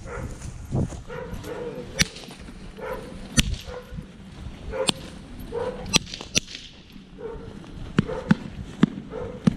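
German shepherd giving short, excited whining yelps about once a second while held back before the attack command, punctuated by several sharp cracks.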